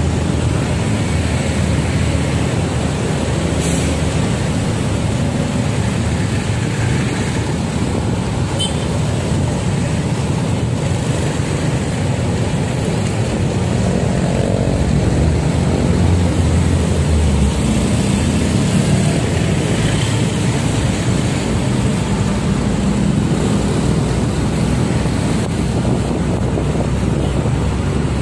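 Steady road traffic noise of engines and tyres, heard from a vehicle moving along with slow traffic of motorcycles, cars and trucks, a little louder around the middle.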